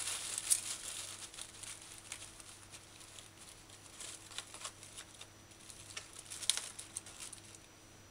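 A plastic bag of dried herbs crinkling while a metal measuring spoon scoops and scrapes inside it, in scattered short rustles and clicks. The sounds die down about seven and a half seconds in.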